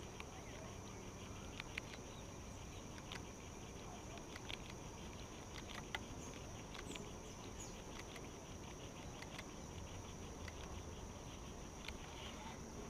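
Steady high-pitched drone of insects in the pondside vegetation, with scattered sharp clicks over a low rumble.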